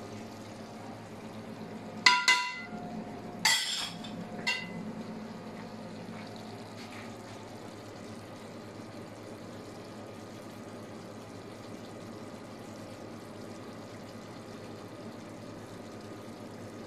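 Metal serving spoon clinking against an aluminium cooking pot and a ceramic plate while rice is dished out: a quick double clink about two seconds in, then single ringing clinks about three and a half and four and a half seconds in. After that only a steady low hum.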